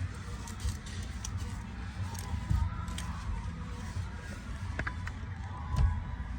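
Steering of a Kia/Hyundai being turned to test for the steering noise, with a steady low rumble and a few light clicks but no clunk: the loose steering-column flange bolts have just been tightened and the noise is gone.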